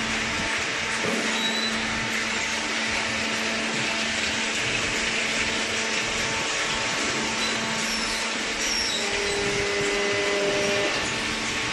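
Hydraulic cardboard baler running: a steady electric motor and hydraulic pump hum with a broad hiss, slightly louder for a couple of seconds near the end.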